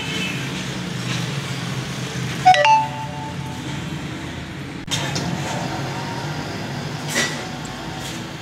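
Steady low mechanical rumble, with one short metallic clink that rings briefly about two and a half seconds in.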